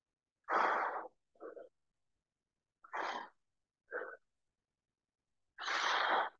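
A man breathing hard with effort during dumbbell overhead tricep extensions. Three forceful out-breaths about two and a half seconds apart, the first two each followed by a short, quick in-breath.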